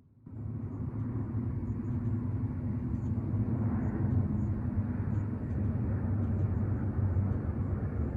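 Airplane passing overhead: a steady low rumble that cuts in suddenly a moment in and holds at an even level.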